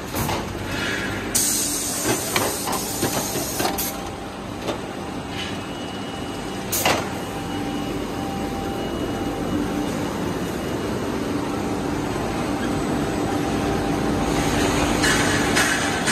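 Machinery of an automated hot-forging line running. Compressed air hisses twice, once about a second and a half in and again near the end. Scattered clanks and one sharp impact about seven seconds in sound over a steady machine hum.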